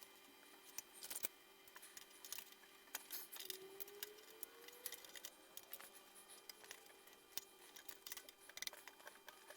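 Faint, scattered clicks and light metallic taps of sheet metal and clamps being handled as the surround piece is clamped to the frame.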